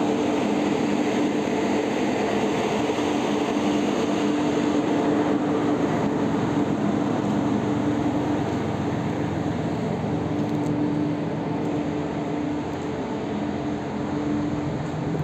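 Steady drone on the deck of a cargo ship under way: a low machinery hum that wavers in and out over an even rush of wind and water.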